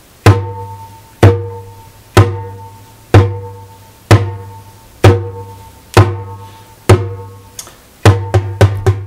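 Darbuka doum strokes played with the index and middle fingertips, about one a second, each leaving a ringing bass that dies away. Near the end the strokes come in a quick run.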